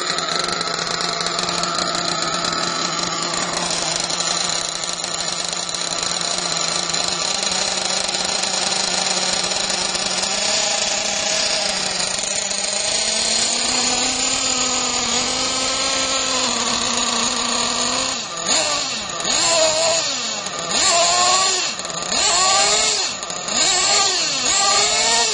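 RB TM 928 nitro engine in an RC truggy idling, then revved in several short throttle blips during the last third, running lumpy with its carburettor not yet tuned.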